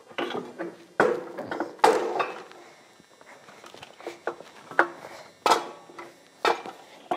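Metal clunks and knocks as a small Robin engine is lifted off a go-kart's steel frame, the two loudest about a second in and just under two seconds in, followed by lighter scattered knocks and footsteps.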